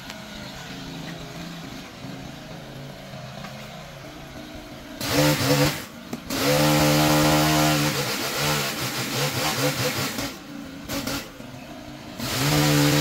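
Chainsaw idling, then revved to full throttle about five seconds in and held there in long bursts. It drops back to idle for a couple of seconds near ten seconds in and revs up again near the end.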